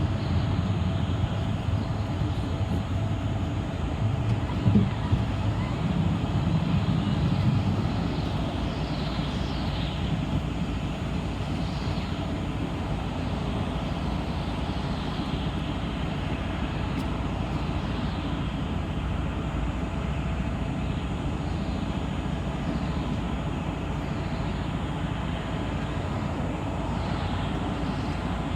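City bus on the move, heard from inside: a steady drone of engine and road noise, with a heavier low rumble for a few seconds near the start.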